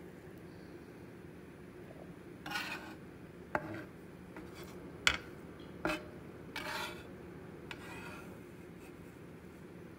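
Metal fish spatula scraping across a wooden cutting board in about five short strokes, with a few sharp clacks, as it gathers up crumbled boiled egg. A faint steady low hum runs underneath.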